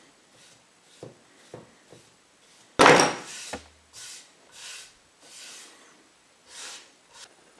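A few light taps, then a loud sharp knock about three seconds in as a paintbrush is set down on the table. Then four short swishes of a palm rubbing across the freshly primed wooden panels.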